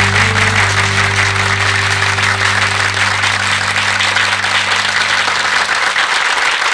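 Audience applauding steadily, with sustained low music notes underneath that die away over the first six seconds, leaving the clapping alone near the end.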